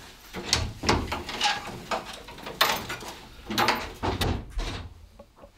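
A door being handled: a string of knocks and clunks, then a heavier clunk of a hard object set down on a wooden bedside table about four seconds in.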